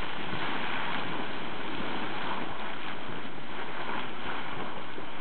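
A geyser erupting: a steady rushing of water and steam.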